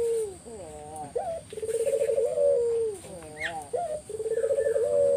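Puter dove (ringneck/Barbary dove) cooing over and over: two long, rolling, fluttering coos that each end in a falling glide, with shorter bending notes between them. It is a strong 'gacor' call used as a lure to set other puter doves calling.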